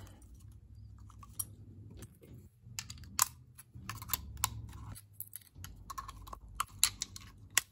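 Irregular small metal clicks and taps as a screwdriver pushes a C retaining clip into its groove on a 1946–48 Ford flathead distributor, with a few sharper clicks about three seconds in and near the end.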